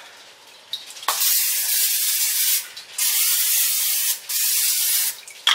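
Aerosol olive oil cooking spray hissing out of its can onto the plates of an electric contact grill, in three bursts: a long one about a second in, a second one about a second long, then a short one near the end.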